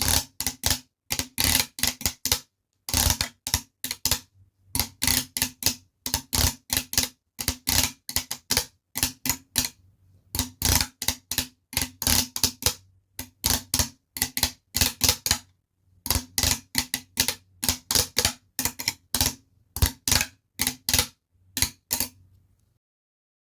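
Typing: keys struck in quick runs of clicks with short pauses between them, each stroke with a low thud, like a manual typewriter; the typing stops near the end.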